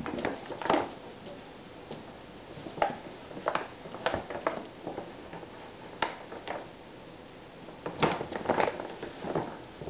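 Paper shopping bag crinkling and rustling as a cat shifts and scuffles around inside it, in irregular spells of sharp crackles with quieter stretches between.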